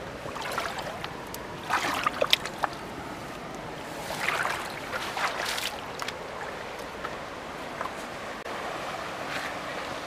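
Shallow stream water moving and lapping against the rocks at the bank, a steady wash. Clusters of louder, sharp sounds come about two seconds in and again around four to five seconds in.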